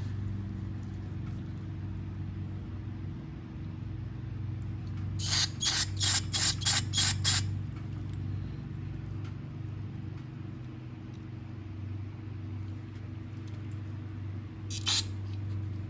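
Short spurts from an aerosol cleaner can, sprayed into a carburetor's passages to flush them: a quick run of about seven spurts about five seconds in, then one more near the end, over a steady low hum.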